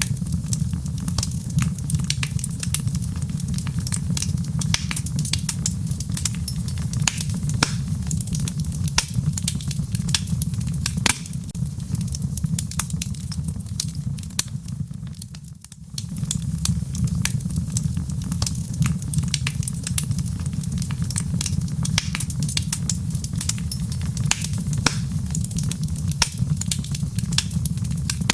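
Fireplace fire crackling: frequent sharp, irregular pops and snaps over a steady low rumble of the flames. The sound dips briefly about halfway through, then carries on as before.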